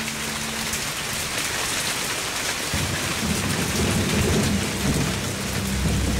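Heavy tropical rain pouring down steadily, with a low rolling rumble of thunder coming in about three seconds in and continuing.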